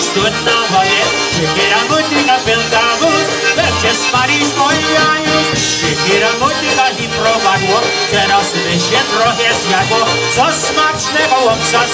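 Live polka band playing an instrumental passage: piano accordion and concertina lead over drums, guitar and a steady pulsing bass.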